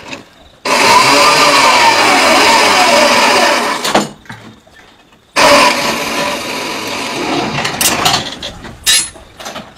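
A machine motor running in two runs that start and stop suddenly, the first with a pitch that rises and then falls, followed by a few sharp knocks near the end.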